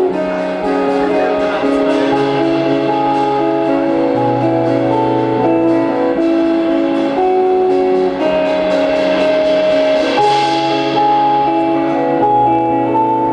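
Post-rock band playing live: electric guitars picking slow, held melodic notes over sustained low notes, with a wash of cymbals swelling about ten seconds in.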